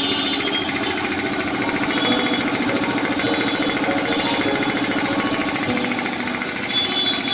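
Piston air compressor with a 1.5 HP motor running steadily, its pump giving a fast, even pulsing chatter while it fills the 110-litre tank.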